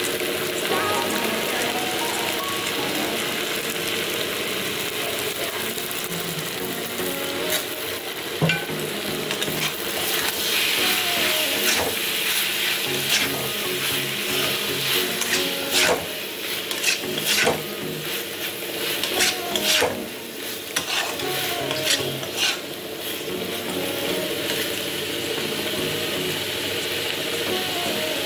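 Paneer and vegetables sizzling in a hot kadai while being stirred. The stirring spoon clicks and scrapes against the pan, most busily through the middle of the stretch.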